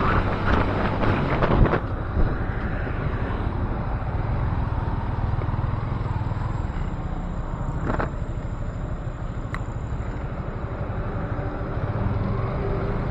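Yamaha motorcycle engine running at low speed. Wind rushes over the helmet-camera microphone for the first couple of seconds, then the bike slows to a steady low rumble. A sharp click comes about eight seconds in.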